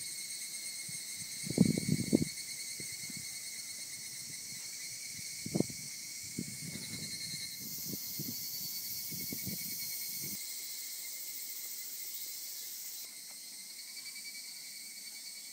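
Steady chorus of insects chirring in several high bands. A few low thumps and rumbles come in the first ten seconds, the loudest about two seconds in.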